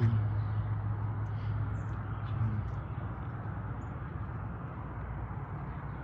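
Steady background noise with a low hum that fades out a little before halfway through.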